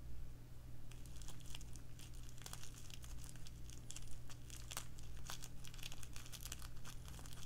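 Clear plastic bubble wrap crinkling and crackling in the hands as a fabric strip is worked into a cut bubble with the blunt end of a bamboo skewer. An irregular run of small, quick crackles starts about a second in.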